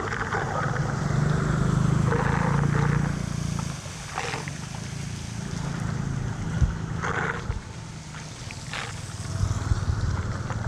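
Floodwater rushing and gurgling into a street drain, a steady noisy rush under a low rumble, with three short louder bursts of splashing.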